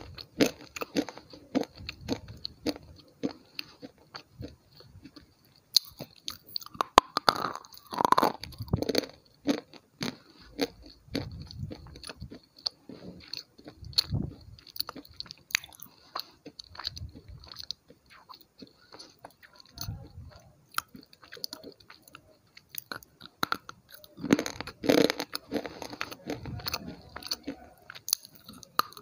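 Close-miked ASMR crunching: hard, brittle pieces bitten off and chewed, a rapid run of sharp crunches with short pauses between bites, the loudest bursts about a quarter of the way in and again near the end.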